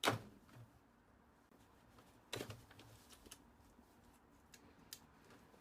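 Small plastic clicks and handling noise as the wire connectors and tube are pulled off a washing machine's water level sensor. A sharp click at the start, another about two and a half seconds in, and a few fainter ticks after.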